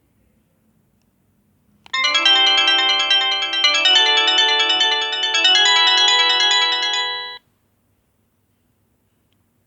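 A ZTE WP650 phone playing one of its ringtones: a chiming melody of several notes at once. It starts about two seconds in and cuts off abruptly after about five and a half seconds.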